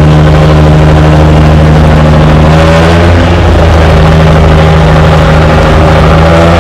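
Diesel engine of a wooden fishing boat running steadily under way, a loud deep drone with a stack of even overtones that holds level throughout.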